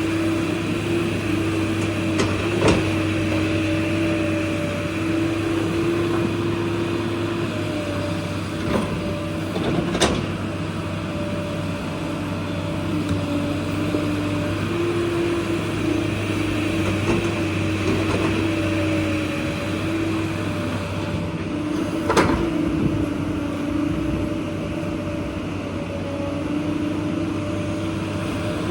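Excavator's diesel engine running steadily with a whine that steps slightly up and down in pitch as it works, and a few sharp knocks, the loudest about 22 seconds in.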